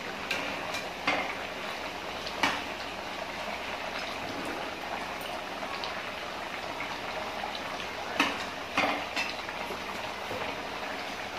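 Chicken boiling in its liquid in an open pressure-cooker pot: steady bubbling, with a few sharp clinks of the metal ladle against the pot.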